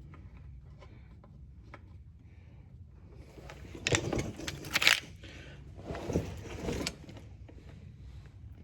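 Metal clinking and rattling of bolts and hand tools during work on a tractor's oil pan, in two bursts of sharp clicks about four and six seconds in.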